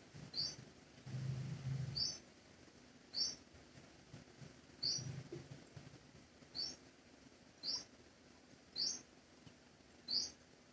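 A bird repeating one short, high chirp about every second and a bit, eight times, over a faint steady hiss of rain.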